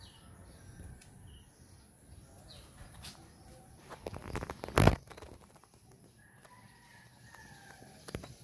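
Outdoor ambience with faint bird calls and a few soft clicks, broken about five seconds in by one loud, sharp thump.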